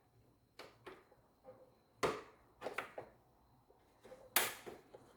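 Hand work on car body trim: irregular sharp clicks and knocks of tools and plastic parts being handled. The two loudest come about two seconds in and just past four seconds in.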